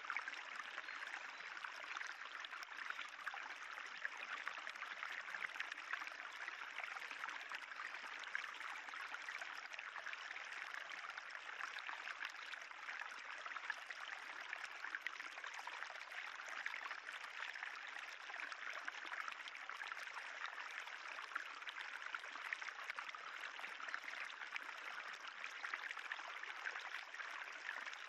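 Spring water running steadily along a moss-covered limestone tufa channel, an even trickling rush with no breaks.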